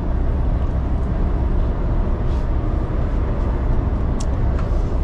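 Engine and tyre noise heard inside a heavy truck's cab cruising at motorway speed: a steady low rumble under an even road hiss.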